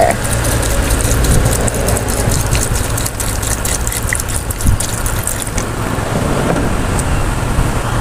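Water poured in a stream into a wok of cut vegetables, splashing for about five or six seconds before stopping, over a steady low rumble.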